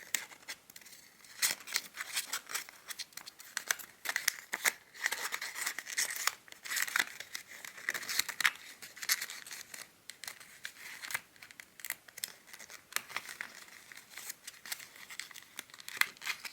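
Origami paper crinkling and rustling in the hands as it is folded and its tips are tucked into one another: an irregular, continuous run of crisp crackles and scrapes.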